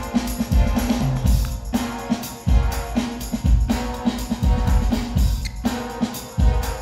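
Drum-heavy music for a breakdancing battle, with a loud kick drum and snare beat.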